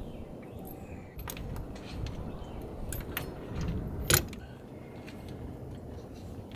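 Metal tools and parts clicking and clinking during work in a truck's engine bay, a few separate sharp clicks with the loudest about four seconds in, over a low rumble.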